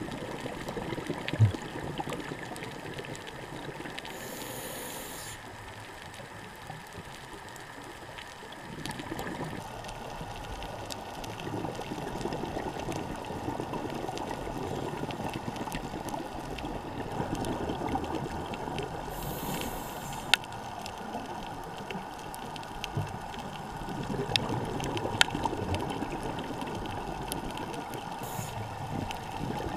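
Underwater sound picked up through a camera's waterproof housing: a steady, muffled rush of water noise, with a few sharp clicks and three brief high hisses.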